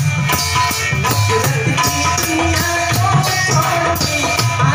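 Live Indian folk-devotional music, an instrumental passage: hand drums keep a steady beat under sustained melody notes, with jingling percussion on top.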